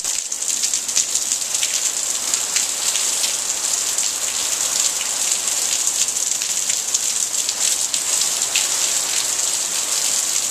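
Heavy rain falling in a downpour: a dense, steady hiss with many individual drops splashing close by.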